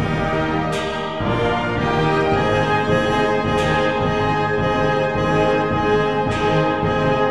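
Orchestral background music led by brass, with sustained chords that change every second or so.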